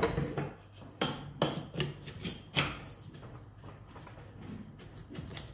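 Aluminium extension tube of an electric long-reach hedge trimmer being handled and pushed into its shaft coupling. Several light knocks and clicks of metal and plastic parts come in the first three seconds, then it goes quieter.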